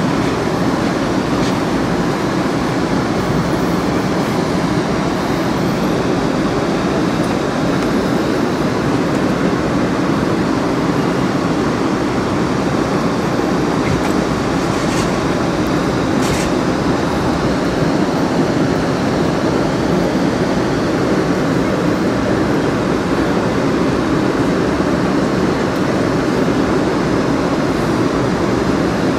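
Amtrak California Zephyr passenger car running along the track, a steady rumble of wheels on rail heard from inside the coach, with two faint ticks about halfway through.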